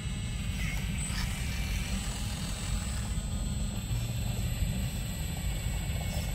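Hydraulic pump and motor of a radio-controlled Volvo excavator running steadily as the machine swings its boom, a low drone with a thin constant high whine.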